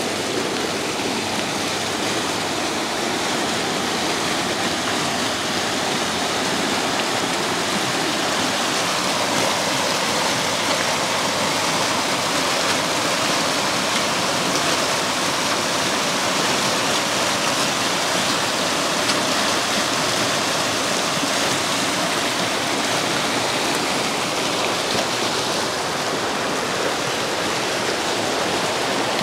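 Mountain stream rushing down a steep stone-lined channel: a steady, even rush of water.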